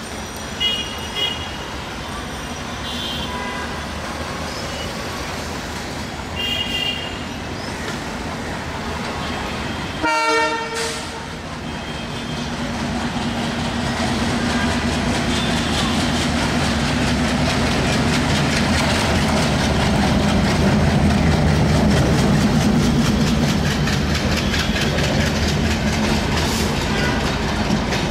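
ALCO WDM-3A diesel-electric locomotive sounding one short blast of its horn about ten seconds in. Its engine then grows louder and runs heavily as it passes, and the LHB coaches follow with wheels clicking over the rail joints. A few short high-pitched toots sound in the first seven seconds.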